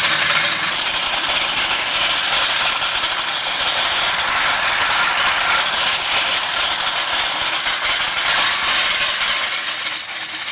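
Shop engine crane being rolled away on its small casters over rough pavement, a loud, steady rattling clatter that fades toward the end.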